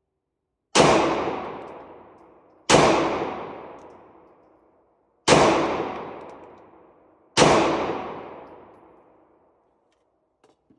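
Four shots from a CZ Shadow 2 9mm pistol, fired at a slow, even pace about two seconds apart, each sharp crack ringing out in a long echo off the indoor range. A few faint clicks near the end.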